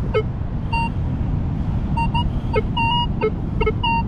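Minelab Vanquish metal detector sounding off over a shallow target: short, repeated high beeps mixed with a few lower tones, the signal switching between pitches as the target reading jumps around. A steady low rumble runs underneath.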